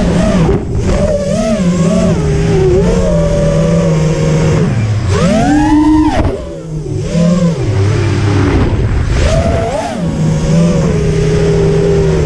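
QAV210 racing quadcopter's brushless motors and RaceKraft 5051 propellers whining as it flies freestyle, the pitch rising and falling with the throttle. About five seconds in the pitch sweeps sharply up and back down, then the level drops briefly as the throttle is cut before the motors spool up again.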